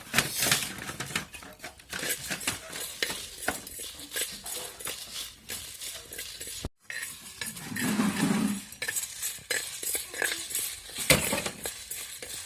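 Whole spices (fennel, cumin, black pepper, dried red chillies) being stirred and dry-roasted in a clay pot, with many quick irregular clinks and scrapes of the utensil against the pot. The sound breaks off briefly about halfway through.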